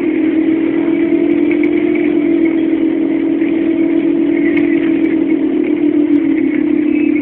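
Volvo Olympian double-decker bus's diesel engine running steadily while the bus is under way, heard from inside the bus as a loud, steady drone with a strong hum.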